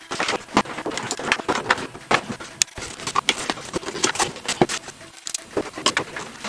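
Cardboard and plastic packaging being handled and opened: a quick, irregular string of crinkles, taps and clicks.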